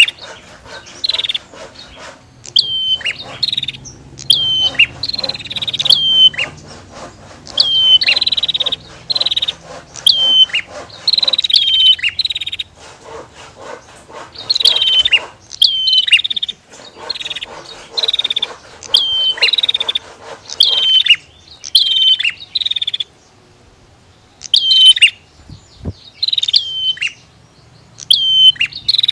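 Prinias (prenjak) calling: sharp, high chirps that each drop in pitch, repeated in quick runs, with a short pause about two-thirds of the way through.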